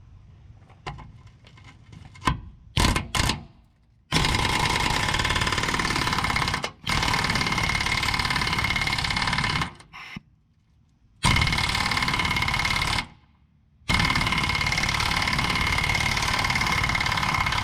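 Impact wrench hammering on rusted gas tank skid plate bolts. A few short blips come first, then four long runs of a few seconds each with short pauses between them.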